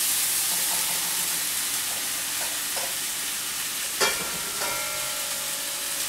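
Rabbit browning in a frying pan on a gas stove: a steady sizzle, with one sharp knock about four seconds in.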